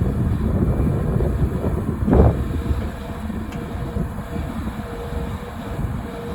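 Volvo EC300E hydraulic excavator running, its engine rumbling, with one heavy thud about two seconds in as the bucket tamps the slope. After that it runs a little quieter, with a steady whine.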